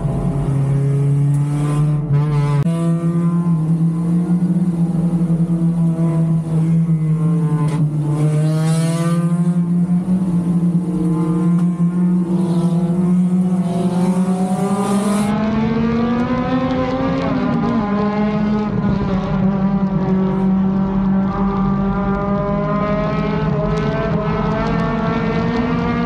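A Lightning 4 stock car's four-cylinder engine running hard at racing speed, heard from inside the cockpit. The engine note climbs slowly in pitch, dips briefly about two-thirds of the way through, then holds steady.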